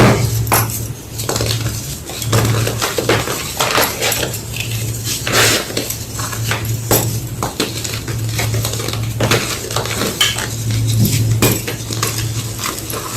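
Homemade gym chalk blocks being crunched and crushed: a dense run of irregular crisp cracks and crumbles, one after another, over a steady low hum.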